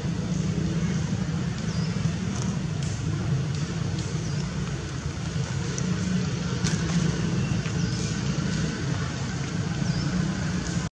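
Steady outdoor background rumble, strongest low down, with a few faint short high chirps now and then.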